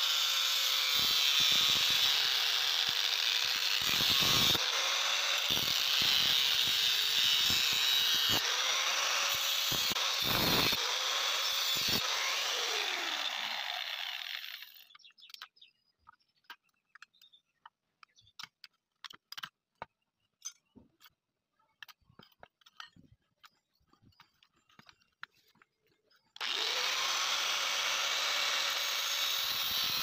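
A power tool working the steel of a saw blade runs loud and steady, then winds down about halfway through. A stretch of scattered light clicks and taps follows, and the tool starts up again abruptly near the end.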